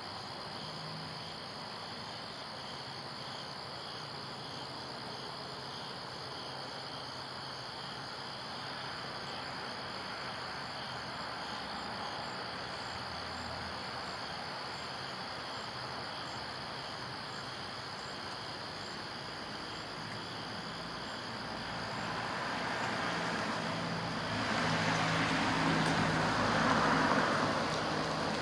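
Crickets chirping steadily, with a passing vehicle growing louder over the last few seconds.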